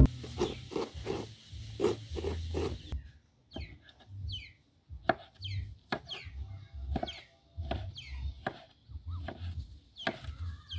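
Kitchen-knife strokes: green papaya being shredded with a knife blade, a quick run of about four scrapes a second, then tomatoes chopped on a wooden table, a slower, uneven series of knocks on the wood. Short falling bird chirps sound in the background.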